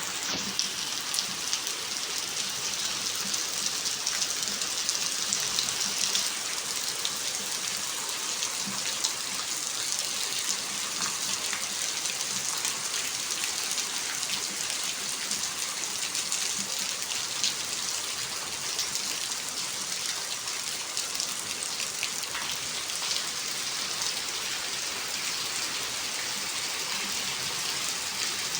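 Steady rain falling, a continuous hiss with the patter of many individual drops striking a surface.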